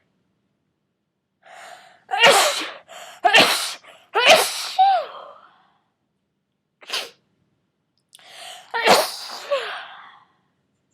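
A person with a cold sneezing in a fit: three loud sneezes in quick succession about a second apart, a brief sound a couple of seconds later, then a fourth sneeze after a quieter build-up.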